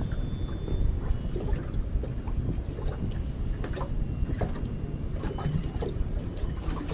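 Steady wind noise on the microphone aboard a small open boat, with water lapping against the hull and a few faint clicks and knocks.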